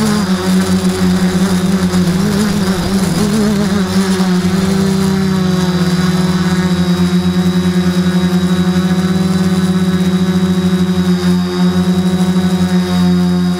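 Q450 quadcopter's four electric motors and propellers humming, heard through the camera mounted on the frame. The pitch wavers as the motor speed shifts about two to four seconds in, then holds steady.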